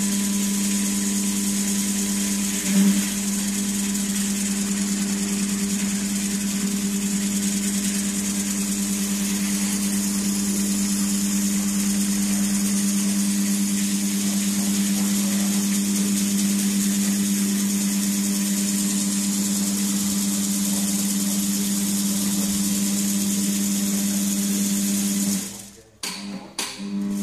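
Motor of a bore-cleaning machine running steadily, driving a flexible shaft inside a T-72 tank's 125 mm smoothbore barrel, with one short knock about three seconds in. Near the end the motor cuts out, then starts briefly a couple more times.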